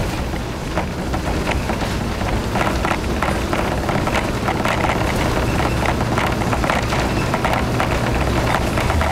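Running sound of a KiHa 52 diesel railcar under way, heard on board: a steady low engine and running drone with a dense patter of clicks and rattles from the wheels, track and car body, growing busier after about two seconds.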